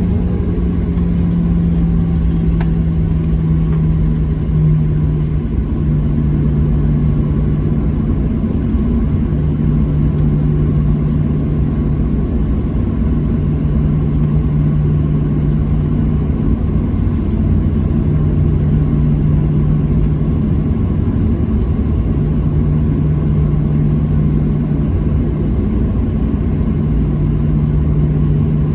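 Boeing 737-700's CFM56-7B jet engines at taxi idle, heard inside the cabin: a steady rumble with a low hum that dips a little in pitch in the first few seconds and then holds.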